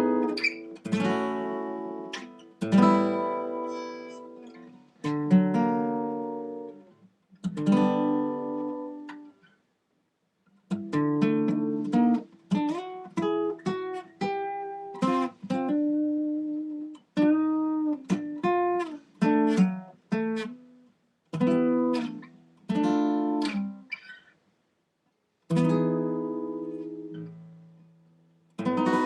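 Solo acoustic guitar music: chords struck and left to ring out a couple of seconds apart, then a quicker passage of picked notes and chords from about ten seconds in, with two short breaks.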